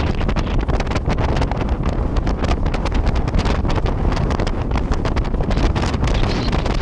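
Wind buffeting the microphone on a moving boat: a loud, steady rumbling rush with constant gusty crackles.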